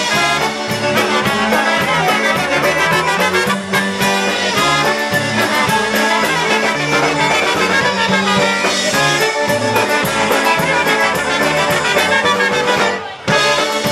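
Live polka band playing: two trumpets leading over accordion, electric bass and drums keeping a steady beat. A brief break in the music about a second before the end.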